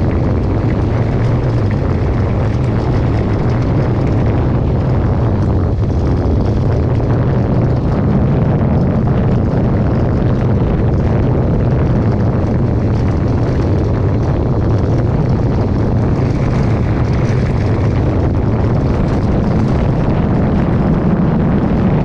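Loud, steady wind buffeting on an action camera's microphone while a mountain bike rides fast along a trail.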